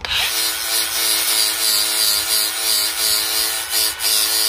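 Hand angle grinder with a sanding disc starting suddenly and grinding a brush cutter's steel blade: a steady motor whine over a harsh grinding rasp, its pitch wavering slightly as the disc works the edge.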